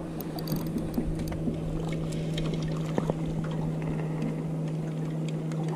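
Steady low motor hum from a boat engine, with water lapping and sloshing against a small aluminium boat's hull and scattered light clicks of fishing tackle.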